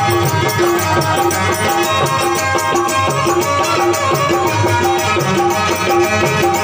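Live music: a harmonium playing sustained notes over a steady beat of jingling hand percussion, about two beats a second.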